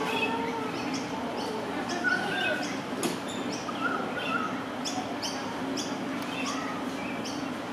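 Small birds chirping: short high chirps about two a second, with a few lower whistled notes, over a steady low hum.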